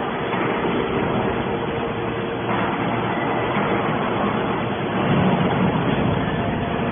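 Gasoline engine of a scrap metal baler running steadily, driving the baler's hydraulics. The sound shifts about two and a half seconds in and grows a little louder about five seconds in.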